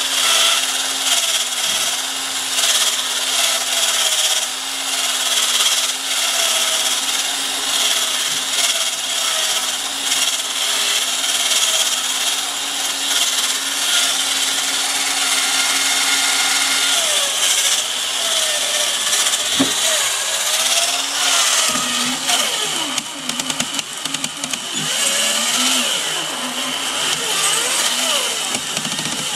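Robot 2001 toy robot's small electric motor and plastic gears whirring steadily. About two thirds of the way through the steady hum breaks off, and the pitch starts to waver and glide up and down.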